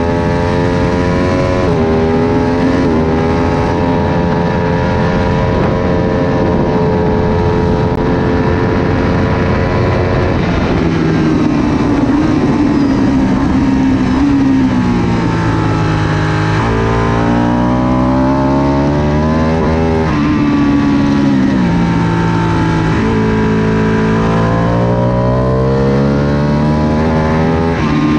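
Ducati 1199 Panigale S's 1198 cc Superquadro V-twin at racing speed, heard onboard: revs climb with quick upshifts and hold high, then wind down over several seconds through downshifts for a corner about ten seconds in. It then accelerates hard again, with two more upshifts in the last third.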